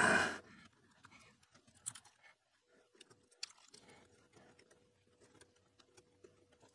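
Faint, scattered small clicks and taps as fingers handle the wire legs of the LEDs and the 3D-printed plastic spacer. A faint steady hum comes in partway through.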